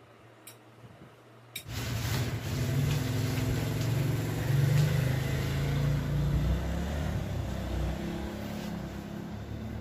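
A low, engine-like rumble with a steady hum starts suddenly about a second and a half in and keeps running.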